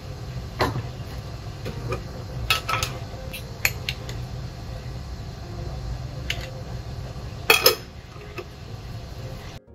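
A metal spoon clinking against a glass jar of whole-grain mustard as it scoops, and against a stainless steel mixing bowl of shredded red cabbage. There are scattered light clinks, with a louder double clink about three-quarters of the way through, over a steady low hum.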